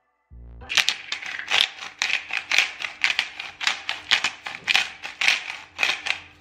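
Pepper grinder being twisted by hand, a steady run of dry, crunchy grinding strokes, about three a second, starting just under a second in.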